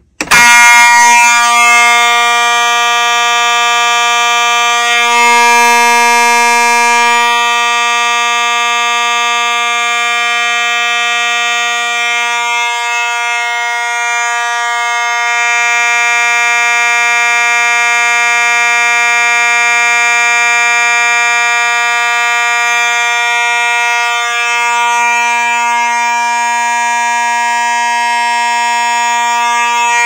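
Simplex 2901-9840 fire alarm horn starting suddenly as the pull station is pulled, then sounding a steady, continuous buzzing tone without a break.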